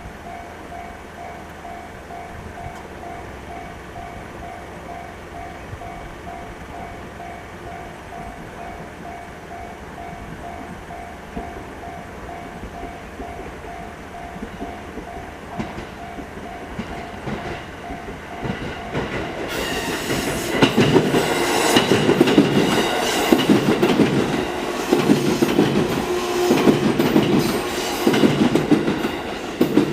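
Japanese railway level-crossing electronic bell ringing its standard JR two-tone pulsing alarm. About two-thirds of the way in, a train passes over the crossing, much louder, with a rhythmic clatter of wheels over the rail joints.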